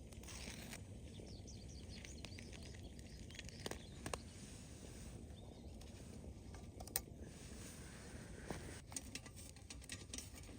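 Small wood campfire crackling: scattered, irregular snaps and pops over a low hiss, with one sharper crack about seven seconds in and a run of quick crackles near the end.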